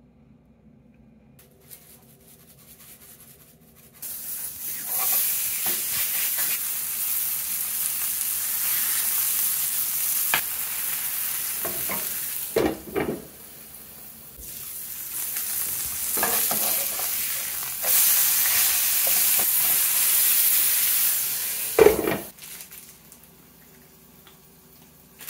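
Ground beef and sliced onions sizzling in a frying pan. The sizzle starts about four seconds in and runs in two long stretches, broken by a sharp knock about twelve seconds in and again near the end.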